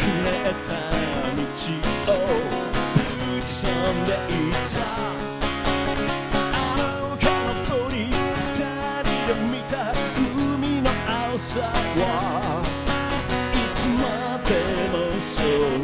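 A man singing with a strummed guitar: a rock song.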